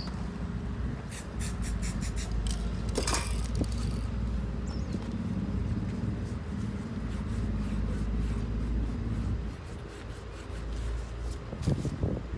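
A steady low rumble of background noise, falling away about three-quarters of the way through, with scattered clicks and a brief scrape about three seconds in, from the canvas and spray cans being handled.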